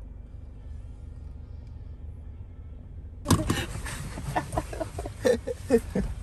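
A low steady rumble, then a little past three seconds a sudden louder start followed by people's short wordless voice sounds and laughter inside a car.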